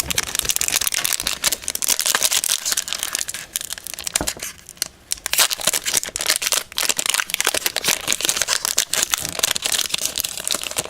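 Foil booster-pack wrapper crinkling as it is handled and opened, with a short pause a little under halfway through.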